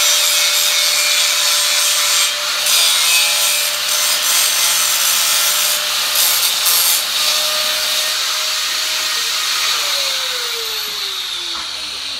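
Angle grinder running at speed and grinding steel, with a steady whine and a grinding hiss. About ten seconds in it is switched off, and the whine falls as the disc spins down.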